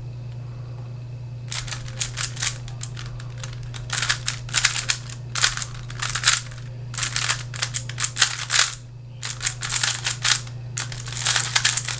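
Giiker Super Cube, a plastic smart 3x3 puzzle cube, turned fast in a timed speedsolve: quick bursts of clicking and clacking layer turns. The clicking starts about a second and a half in, stops briefly about three-quarters of the way through, then resumes. A steady low hum runs underneath.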